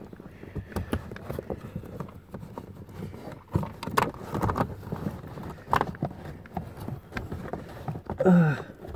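Irregular scraping, rustling and knocking of a pleated cabin air filter being bent and forced up into its plastic housing under a car's dashboard. A short voice sound, like a grunt, comes near the end.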